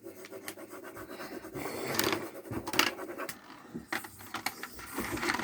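Pens scribbling and colouring on paper: a steady scratchy rubbing broken by small taps.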